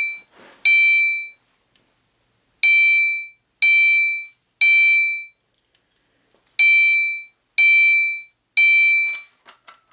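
Gentex Commander 3 fire alarm horn sounding a temporal-3 pattern, the standard evacuation signal. Its high-pitched electronic tone comes in groups of three short blasts about a second apart, with a pause of about a second and a half between groups.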